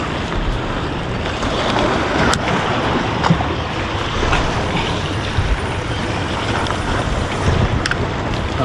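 Waves washing and breaking against the jetty rocks, a steady rushing noise, with wind buffeting the microphone.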